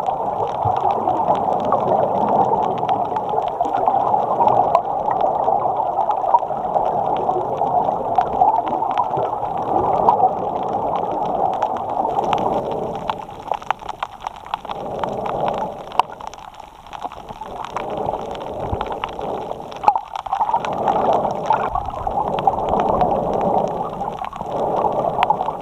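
A snorkeler breathing in and out through the snorkel, picked up muffled through the waterproof camera housing mounted on it, with gurgling water and a few small clicks. The breath noise eases off briefly several times in the second half.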